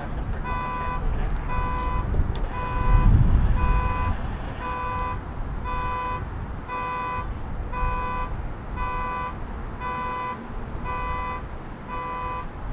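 Car alarm sounding a horn in short, evenly spaced honks, about one and a half a second, set off by the jet's takeoff noise. Under it a low rumble swells about three seconds in.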